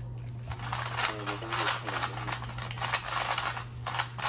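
A speed cube being turned rapidly during a solve: a fast run of plastic clicks and clatter starting about a second in, over a steady low hum.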